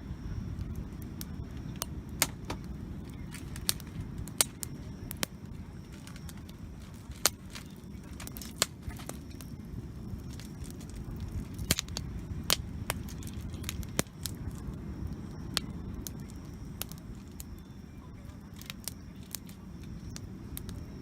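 Wood campfire burning, with irregular sharp crackles and pops of the burning wood over a steady low rumble.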